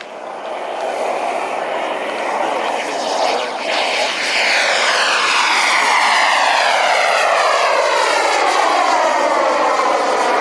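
Turbine engine of a radio-controlled model jet flying past and climbing away, a loud rushing jet sound that swells about four seconds in, with a swishing tone that slides down in pitch as it passes.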